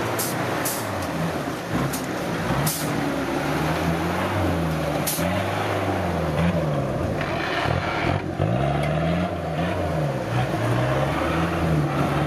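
Off-road 4x4's engine revving up and dropping back again and again, the pitch rising and falling every second or so. A few short sharp sounds come in the first five seconds.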